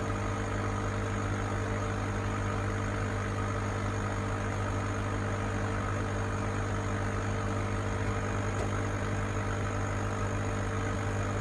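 Cheap 40 W CO2 laser cutter standing idle with its fans and pumps running: a steady low hum with a few fixed higher tones and a light hiss.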